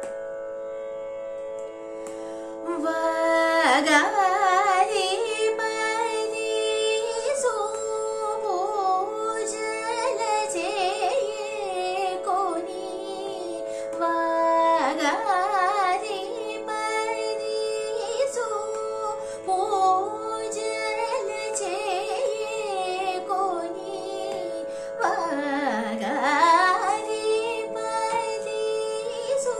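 A woman singing Carnatic classical music over a steady drone. Her voice is full of gliding, ornamented notes, and it comes in about three seconds in after the drone has sounded alone.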